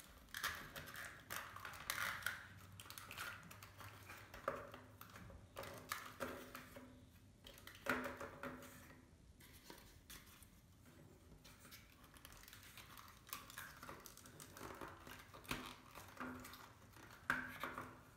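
Foam-board puzzle pieces being handled and pushed into slots: faint, irregular scrapes, rubs and small clicks, with a couple of sharper clicks about eight seconds in and near the end.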